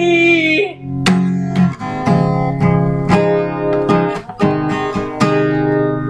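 Acoustic guitar with a capo strummed in a steady rhythm, about two strokes a second, as an instrumental break between sung lines. A held sung note fades out in the first second.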